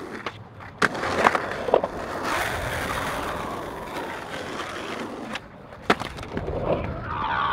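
Skateboard wheels rolling over rough asphalt, with a quick run of sharp clacks from the board popping and landing about a second in. Another clack comes near six seconds, then the trucks scrape and grind along a concrete curb near the end.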